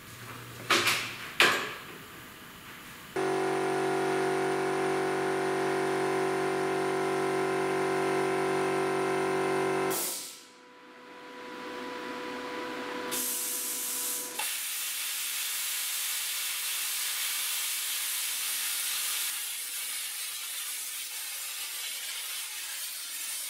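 Two sharp knocks, then a loud steady hum of several tones that cuts off abruptly after about seven seconds. In the second half a plasma cutter cuts through steel plate with a steady hiss.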